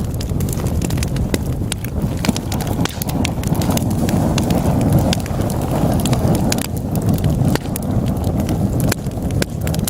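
Wood fire burning in a fireplace: a steady low rumble of flames with frequent sharp, irregular crackles and pops from the burning logs, the flames swelling a little in the middle.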